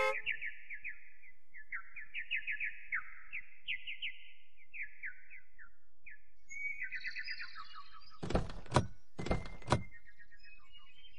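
Birds chirping in quick falling runs of notes, joined by higher calls about six seconds in. About eight and nine seconds in come four sharp knocks in two pairs: a car door clunking as it is worked.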